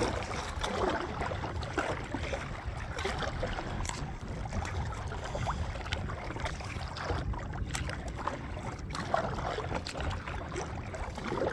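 Kayak paddling: water splashing and dripping off the paddle blades and lapping against the plastic hull of a sit-on-top kayak, as scattered small splashes over a steady wash of water.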